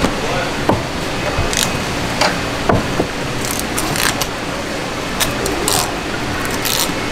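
Filleting knife scraping along the bones of an olive flounder in short, scratchy strokes with small clicks, over steady background noise.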